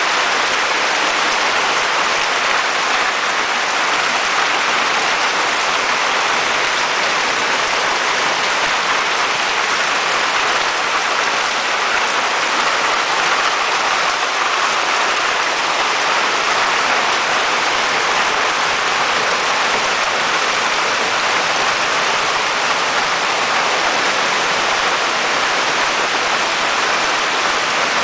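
Steady rain falling on surfaces, an even hiss with no breaks or separate drops standing out.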